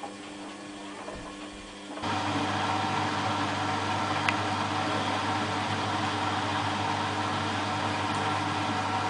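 Laundry appliance running quietly, then a motor switches on abruptly about two seconds in and keeps running with a steady hum and a broad rush of noise.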